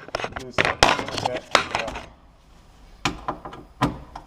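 Sharp clicks and knocks of a screwdriver, washers and a metal pull handle being worked against a wooden door: a quick clatter for about two seconds, then two single knocks near the end.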